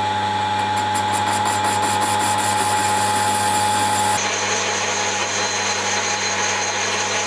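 Chester Craftsman metal lathe running steadily with a constant hum and whine while the tool faces off a cast iron blank. The sound shifts abruptly about four seconds in.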